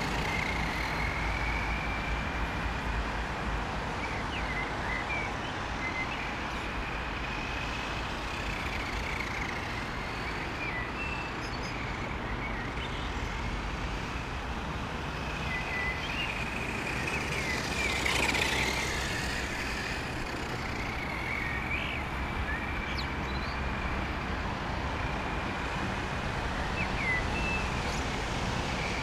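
Whine of a brushed-motor 1/10 short-course RC truck, rising and falling as it is throttled around, over a steady low rumble. It swells loudest about two-thirds of the way through.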